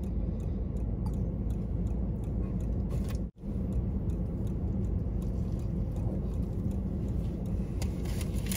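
Steady low hum inside a parked car's cabin, with a few faint small clicks and a brief dropout about three seconds in.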